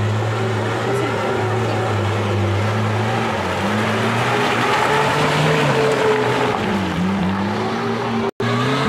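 Lifted Suzuki SJ-series 4x4's engine working under load as it crawls through a muddy rut, holding a steady pitch at first, then revving up and down repeatedly as the driver works the throttle. The sound cuts out briefly near the end.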